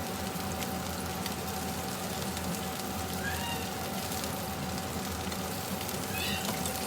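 Fried rice sizzling steadily in a hot wok, over a constant hum, with two brief high chirps about three and six seconds in.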